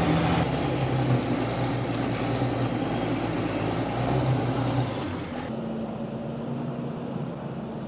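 A vehicle engine running steadily with a low hum. Its sound changes abruptly about half a second in and again about five and a half seconds in.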